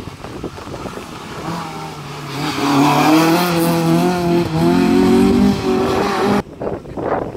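A Citroën rally car's engine revving hard as it comes past close by, its pitch rising and dipping with throttle and gear changes. The engine sound stops abruptly about six seconds in, leaving wind buffeting the microphone.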